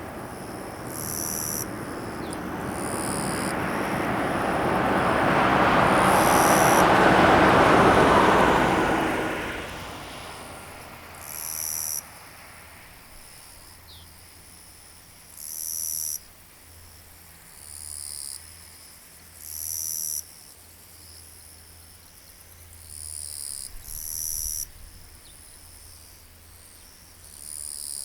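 A vehicle passes, its noise swelling over about eight seconds and dying away about ten seconds in. Throughout, insects call in pulses about a second long, repeated every couple of seconds.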